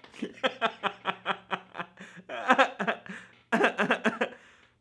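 A man laughing hard in quick repeated bursts of 'ha', with two louder runs of laughter in the middle.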